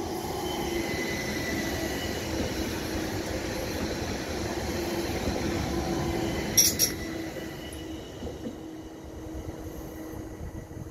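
ÖBB electric multiple-unit train running past on the station tracks, a steady rumble with a constant whine over it. About six and a half seconds in there is a sharp double clink, and then the noise fades as the train moves away.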